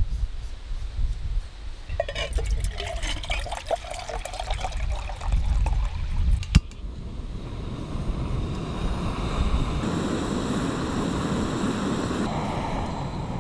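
Metal clinking as a camp stove and pot are handled, then a single sharp click. After that, water is poured from a plastic bottle into a metal camping pot, a steady splashing that runs on to the end.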